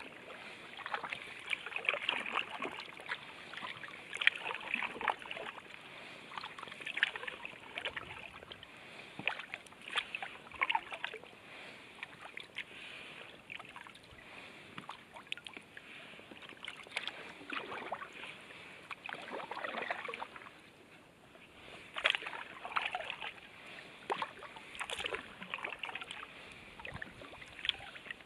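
Kayak paddle strokes in calm water: the blades dip and splash with dripping water, a splash every second or two.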